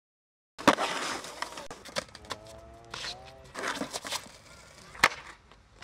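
Skateboard on asphalt: a loud clack as the sound comes in, rolling noise and a few smaller knocks, then a sharp slap of the board on the ground about five seconds in. A short pitched call sounds near the middle.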